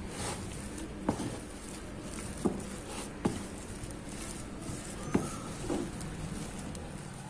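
A wooden spatula stirs and mashes potato and vegetable mixture in a bowl, with about five sharp knocks as it strikes the bowl.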